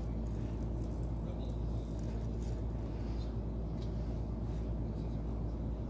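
Steady low hum, with a few faint light ticks over it.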